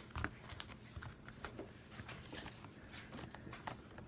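Homemade slime being handled by hand on a wooden tabletop: stretched, patted and squished, giving irregular short smacks and sticky pops, the sharpest a moment in.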